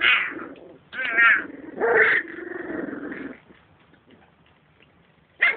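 Three-week-old beagle puppies whimpering: several short high-pitched cries, one wavering about a second in, then a lower drawn-out whine, and a brief cry near the end.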